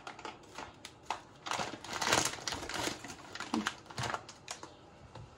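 Dry pasta clattering as it is shaken out of its opened plastic packet, a rapid uneven run of small hard clicks, busiest about two seconds in.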